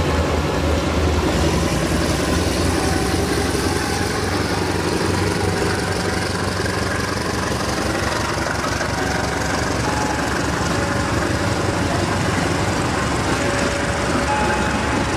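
Passenger train coaches rolling slowly past: a steady rumble with a low engine hum, and short high tones coming and going.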